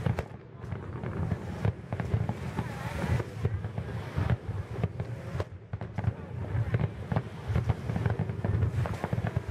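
Fireworks display going off: a dense, continuous run of bangs and crackles, with brief lulls about half a second in and again near the middle.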